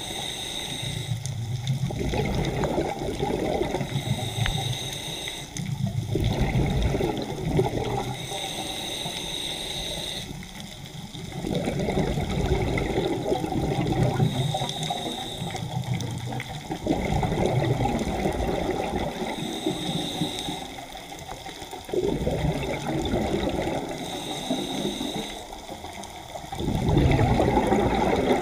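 Scuba diver breathing through a regulator underwater: a short hiss on each inhale, then a long gurgle of exhaust bubbles, repeating about every four to five seconds.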